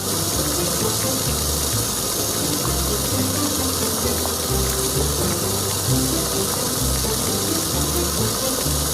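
Background music with a low bass line stepping between notes, under a loud, steady rushing hiss like water spraying or a gush that starts abruptly.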